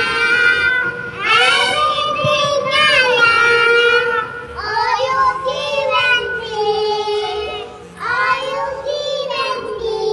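A child's voice singing a children's song in long held notes, phrase after phrase, with short breaks between the phrases.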